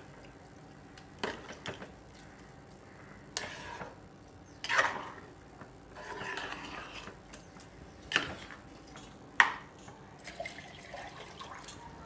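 A slotted ladle stirring a watery mix of rice, dal and vegetables in a pressure cooker: wet sloshing and squelching, broken by irregular short knocks and scrapes of the ladle against the pot.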